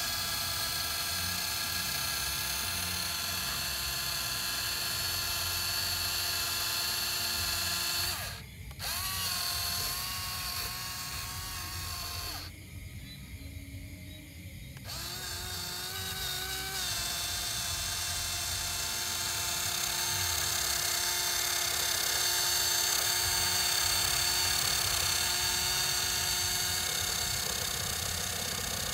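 Small electric motor of a DIY remote-control toy tractor whining steadily as it drives and pushes dirt with a front blade. The whine breaks off briefly about eight seconds in and again for a couple of seconds around thirteen seconds, coming back at a slightly shifted pitch.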